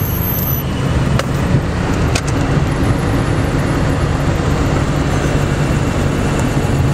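Cabin noise in a 2003 Columbia 350 single-engine plane at the end of its landing: the six-cylinder Continental engine's steady low drone under an even rush of air. Two sharp clicks about one and two seconds in.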